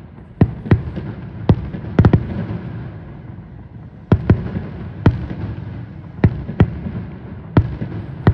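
Aerial firework shells bursting in an irregular series of sharp bangs, about a dozen, over a continuous low rumble, with a short lull in the middle.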